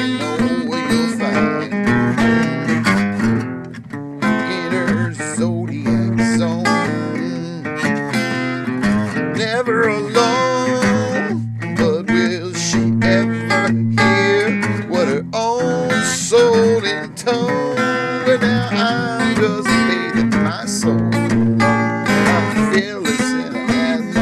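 Acoustic guitar strummed steadily in a continuous instrumental passage of a song.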